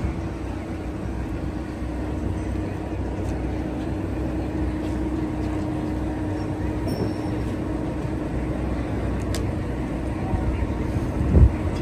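Twin-turbo Suzuki GSX-R1000 drag bike engine idling with a steady low rumble, with a short louder blip near the end.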